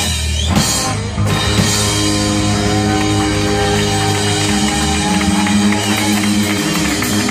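Live rock band with electric guitar and drum kit playing loudly. About a second in, the drum hits thin out and the guitars hold long ringing notes.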